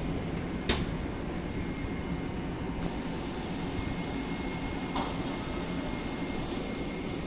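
Polregio electric multiple unit rolling to a stop alongside the platform and then standing, its equipment giving a steady rumble with a thin, steady high whine. Two sharp clicks, about a second in and about five seconds in.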